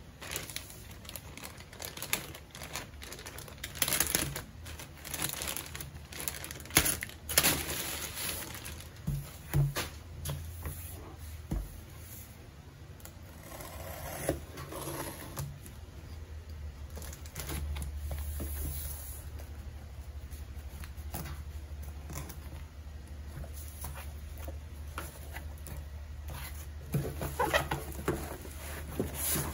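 Parcels being opened by hand: a plastic mailer crinkling and rustling with scattered taps, then a box cutter scraping through the packing tape on a cardboard box, and bubble wrap crinkling near the end.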